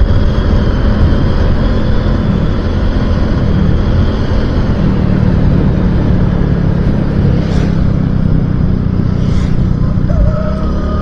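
Motorcycle running steadily on the road, with engine and road noise heavy in the low end.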